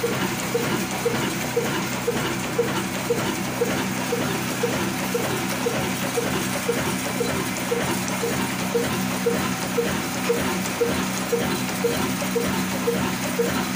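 Diamond 22 HP slow-speed horizontal diesel engine (a 'kala engine') running steadily at about 275 rpm. It fires with an even beat of about two strokes a second over a steady hum.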